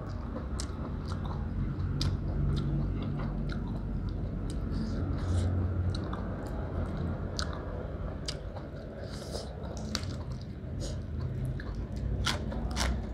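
Close-up chewing of blanched beef tripe and fresh leafy greens, with wet clicks and smacks over a steady low hum. Near the end a bite into a lettuce-leaf wrap gives a few crisp crunches.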